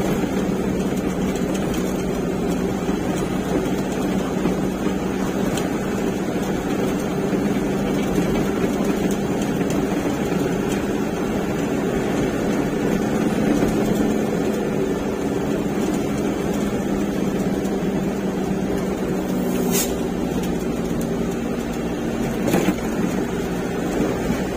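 A truck engine running steadily while driving, with a low rumble throughout. Two sharp knocks come near the end, about two and a half seconds apart.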